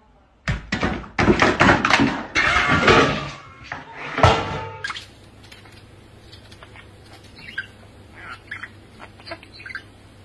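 A few seconds of loud knocks and cries, then a budgerigar's short, faint chirps.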